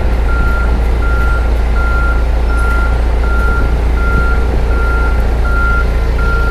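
Toyota forklift's engine running while its backup alarm beeps, an even high beep about one and a half times a second.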